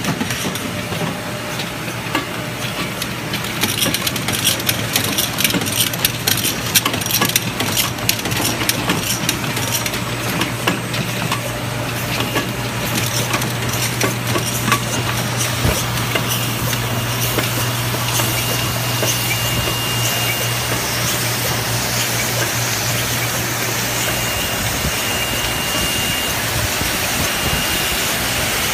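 Cask Brewing Systems ACS X2 automated canning line running: aluminium cans clatter and clink along the conveyor through the filler and seamer over a steady machine hum and hiss. A high whine comes and goes in the second half, and the hum stops near the end.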